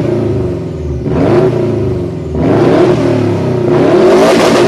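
Subaru Impreza GT's flat-four boxer engine revving in repeated blips, each rise in pitch and level stronger, the loudest near the end.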